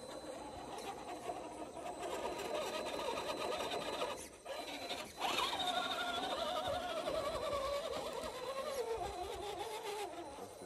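Electric motor and gears of a radio-controlled rock crawler whining under throttle as it climbs over rocks. The whine drops out briefly about four seconds in, comes back higher a second later, then slowly falls in pitch.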